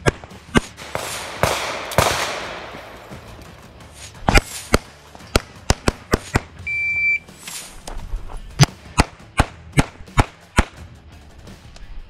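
Compensated CZ 75 TS Czechmate pistol firing strings of shots in quick succession, with a pause in the middle while the shooter moves between positions. A rush of noise comes about two seconds in and a short high steady tone near the middle.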